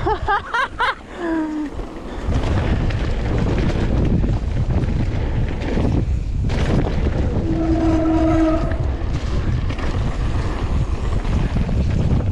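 Wind buffeting a GoPro Hero 9 action camera's microphone over the rumble and rattle of a mountain bike rolling fast down a dirt forest trail. A short steady whine sounds for about a second around two-thirds of the way through.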